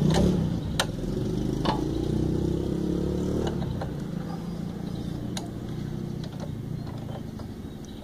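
A motor vehicle engine running nearby, its pitch rising a little over the first few seconds and then fading away. A few sharp metallic clicks come from a socket wrench on the motorcycle's front brake caliper bolt.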